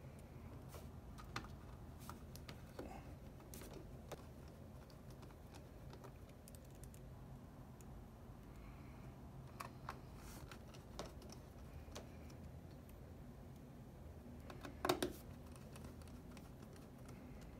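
Scattered faint clicks and taps of a small pentalobe screwdriver and fingers on a MacBook Air's aluminium bottom case, with a sharper double click about fifteen seconds in, over a low room hum.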